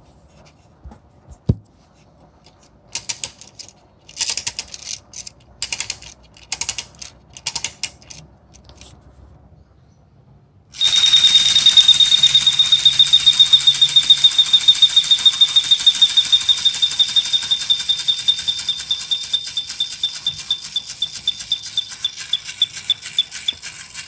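Issmayer clockwork tin-toy bird cage: a run of short clicking bursts as the key is wound, then from about eleven seconds the mechanism runs with a loud, high whistle trilling in fast pulses over a steady mechanical whirr. Near the end the pulses space out as the spring runs down.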